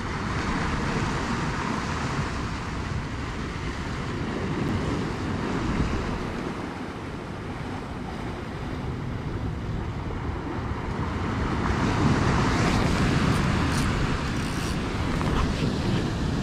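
Sea surf washing against shoreline rocks, swelling and easing, loudest about twelve seconds in, with wind on the microphone.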